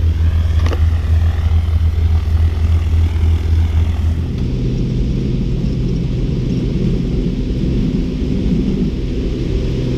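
Single-engine propeller plane's piston engine running steadily, a loud low drone heard from outside the aircraft. About four seconds in, the sound cuts to the same engine heard from inside the cabin as the plane rolls over grass: a slightly quieter, steady hum.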